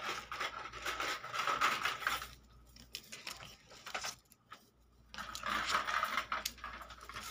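Gold bangles clinking and sliding against each other as a hand picks them up and turns them over, in two busy spells with a quieter gap in the middle.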